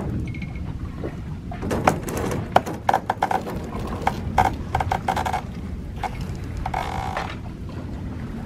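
Sheet winch being worked to trim the jib on a sailboat: a run of rapid ratcheting clicks and creaks starting about two seconds in and lasting a few seconds, with another short creak near the end, over a steady rush of wind and water.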